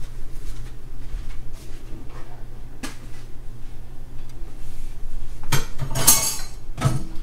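Plates and cutlery clinking and scraping: scattered light knocks, then a louder run of clatter about five and a half seconds in.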